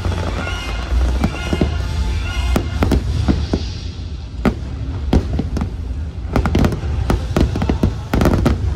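Fireworks bursting in quick succession, a string of sharp bangs over a deep continuous rumble, with the show's music playing under the first few seconds.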